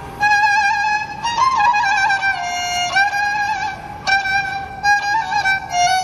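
Azerbaijani kamancha, a bowed spike fiddle, playing a slow solo melody. The notes are held and ornamented with quick wavering trills, and a new note begins about every second.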